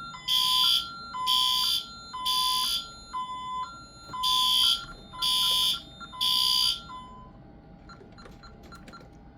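L-series fire alarm horn strobe sounding after a pull station is activated in a system test: two groups of three horn blasts in the temporal-three evacuation pattern, stopping about seven seconds in. A fainter beep alternating between two pitches sounds underneath the blasts.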